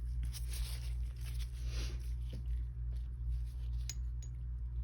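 Soft scratching and handling noises of acrylic nail supplies being worked on a table, with one sharp click about four seconds in, over a steady low hum.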